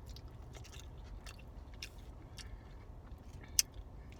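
A person chewing food close to the microphone, with small wet mouth clicks, over a steady low rumble; a single sharp click about three and a half seconds in is the loudest sound.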